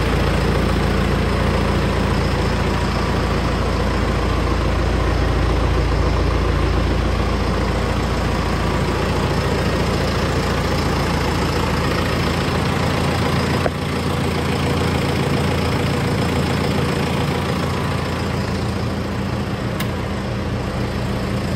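John Deere 6430 tractor's diesel engine idling steadily. A click comes about two-thirds of the way through, after which the deep hum drops slightly.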